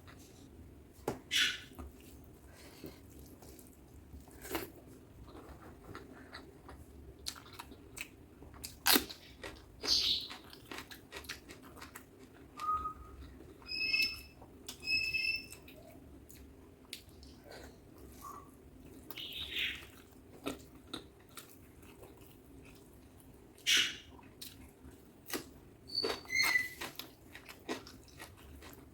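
Close-miked eating sounds: wet chewing, smacking and mouth clicks from someone eating butter chicken with rice, at an uneven pace. A few short, high pings come about halfway through and again near the end.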